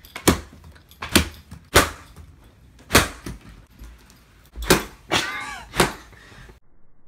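An iPhone being struck repeatedly with a hard object: about six sharp knocks a second or so apart, with a short squeal-like sound about five seconds in. The sound cuts off suddenly near the end.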